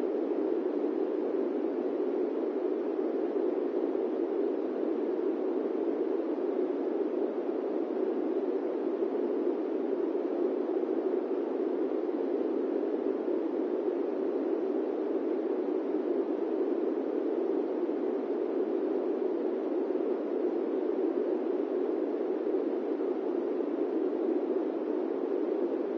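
Electric fan running with a steady, even, muffled whoosh that never changes, played as white noise for sleep.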